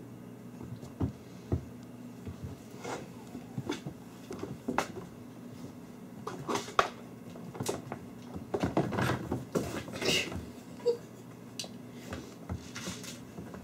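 Kittens playing on a wooden floor: irregular light thumps, taps and scuffles of paws and small bodies, with a busier flurry about nine seconds in.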